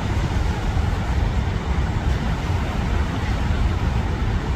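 Steady roar of the Rhine Falls, a broad waterfall, an even rushing noise heaviest in the low range.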